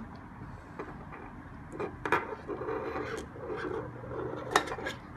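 Handling noise from small tools and parts: a few sharp clicks and knocks, with a rough rubbing stretch in the middle.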